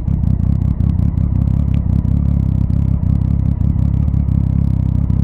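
Motorcycle engines idling at a standstill: a steady, low, rapidly pulsing rumble.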